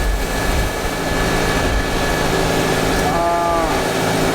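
Vehicle engine running steadily under a loud, even rushing noise. About three seconds in there is a brief pitched call.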